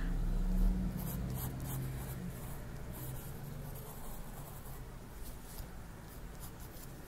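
Wooden pencil scratching across paper in short, faint strokes while drawing, over a low steady hum that is strongest in the first second.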